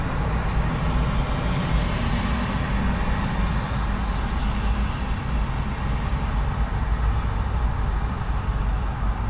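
Steady traffic close to an urban road with fairly heavy traffic: a continuous low rumble of engines and tyre noise from passing cars, buses and trucks, swelling slightly as a vehicle passes about two seconds in.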